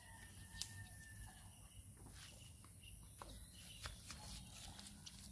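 Near silence: faint outdoor ambience with a steady high-pitched hiss and a few soft clicks.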